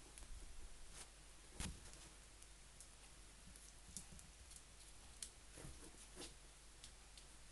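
Kittens play-fighting on a blanket: faint scattered scuffs and claw clicks over near silence, with one sharper knock about one and a half seconds in.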